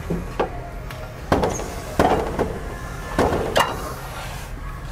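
A run of about seven clunks and knocks from a metal tool cabinet being handled, its doors or drawers shut and pulled. The loudest knocks fall in the middle, over a steady low hum.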